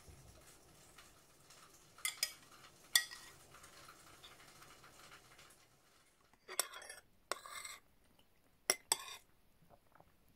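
Metal cutlery clinking and scraping on a ceramic plate: a few sharp clinks, two short scrapes a little past halfway, then two more clinks near the end.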